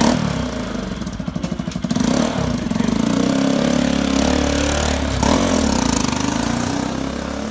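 Kawasaki RS200's single-cylinder engine running through an aftermarket MT8 scooter muffler, with an open-pipe exhaust note. It idles with quick, even exhaust pulses, then pulls away as the bike rides off.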